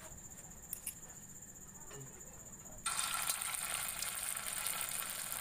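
Hot cooking oil in a wok starting to sizzle abruptly about three seconds in, as a small piece of food is dropped in; a steady frying hiss follows.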